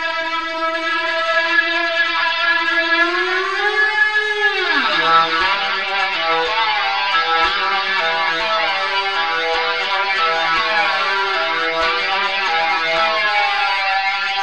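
Lap steel guitar played with a ceramic slide through a Sound Stone Sustainer. One long held note with gentle vibrato bends slightly up, then slides steeply down about four to five seconds in, and lower notes ring on, sustained, with a wavering vibrato.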